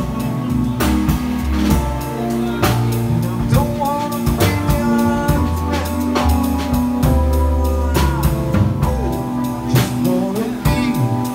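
Live trio of saxophone, drum kit and electric keyboard playing a song, with the drums keeping a steady beat under held keyboard chords and a melody line.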